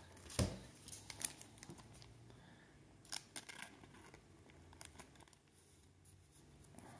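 Trading card being slid into a plastic card sleeve: faint rustling and light clicks of card and plastic, with a sharper click about half a second in.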